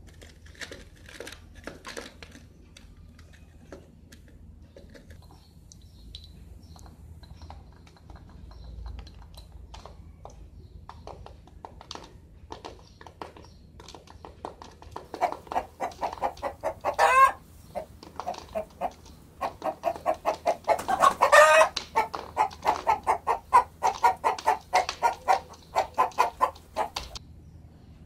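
Chicken clucking in fast runs of short notes, starting about halfway through, with two louder squawks among them.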